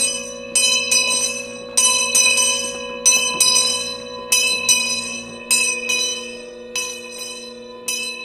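Bells struck about twice a second in an uneven pattern, each stroke ringing on and overlapping the next, over a steady low drone.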